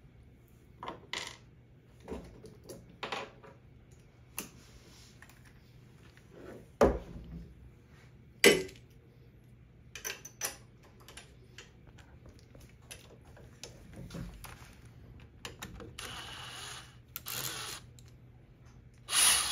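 Scattered metallic clicks, taps and knocks of hand tools and metal parts as a CNC router's carriage is assembled, with two louder knocks about 7 and 8.5 seconds in and two short bursts of noise near the end.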